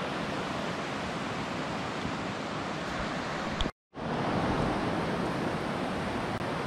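River water rushing over a rocky riffle: a steady rush that breaks off for an instant just under four seconds in, then carries on.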